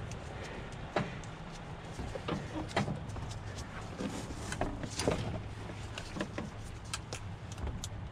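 Irregular small clicks and knocks of hands pushing hoses, fittings and clips onto a carburetor, over a steady low hum.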